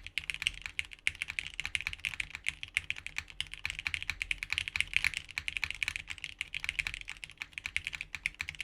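Fast, continuous typing on a plateless 60% custom mechanical keyboard (Sagrada) with lubed Cherry MX Black switches and GMK keycaps. The keystrokes come densely, with a brief break about a second in.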